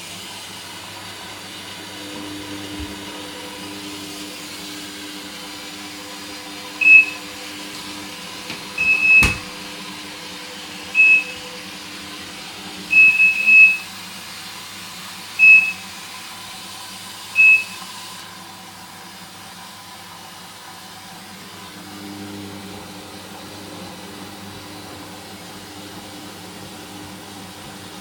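Hoover Dynamic washing machine on its second rinse: water hissing in through the fill valve over a low hum, the hiss dropping away about two-thirds of the way through. Over it come six short, high electronic beeps, some in quick pairs, the loudest sounds here, with a sharp click among them.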